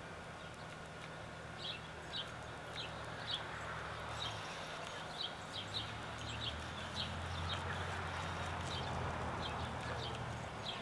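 Birds chirping, short high calls repeating irregularly one or two a second, over a steady low rumble.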